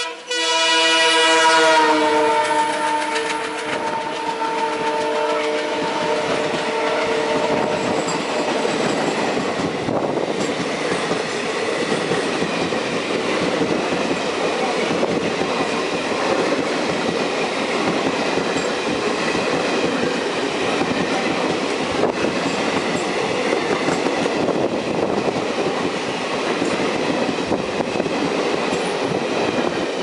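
Horn of a WDG3A ALCO diesel-electric locomotive blaring as it passes at speed, its pitch dropping slightly, dying away about two seconds in. Then the express's coaches rush past with steady wheel-and-rail roar and clatter, until the last coach goes by near the end.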